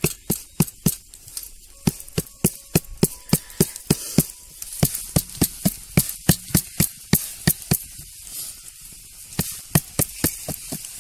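Hands patting bhakri dough flat on a flour-dusted steel plate: a quick run of sharp pats, about three a second, with a short pause about two-thirds of the way through.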